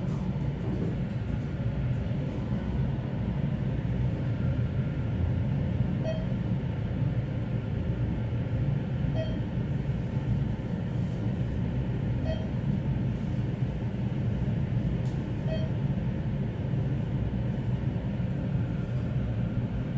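ThyssenKrupp passenger elevator car descending, with a steady low rumble of travel inside the cab. A short faint beep sounds four times, about three seconds apart.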